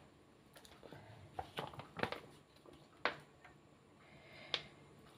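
Faint scattered clicks and taps as a plastic ketchup pouch is handled and squeezed, with a soft hiss of ketchup squirting out near the end.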